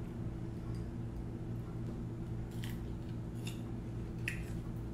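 A few short, crisp crackles of brittle tamarind pod shells being cracked and peeled by hand, over a steady low hum.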